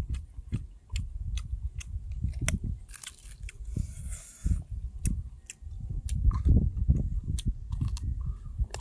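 A person chewing food close to the microphone, with irregular crunching clicks and soft low thumps, and a brief hiss about three seconds in.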